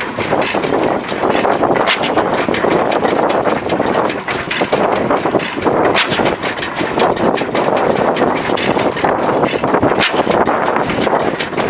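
Antique machinery running with a constant dense clatter, punctuated by a sharp bang about every four seconds.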